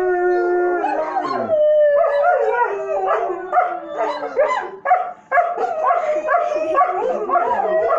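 Two big dogs howling together: long drawn-out howls that slide downward, then from about two seconds in a run of shorter, wavering howls and yips.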